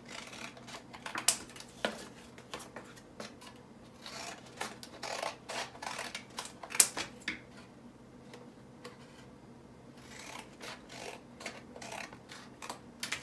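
Scissors snipping through paper in irregular cuts, with paper rustling as the sheet is handled and turned.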